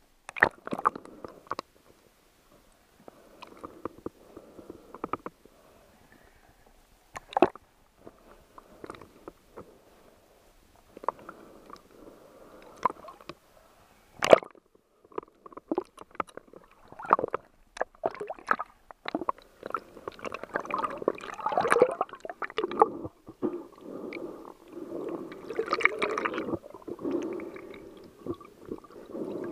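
Muffled underwater gurgling and water movement heard through a waterproof camera housing, with scattered sharp knocks and clicks. It grows busier and louder in the last several seconds.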